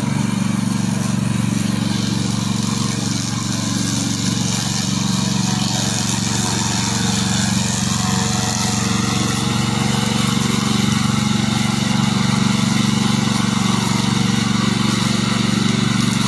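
Loncin 15 hp engine of a tracked remote-controlled brush mower running steadily as the mower cuts through tall grass.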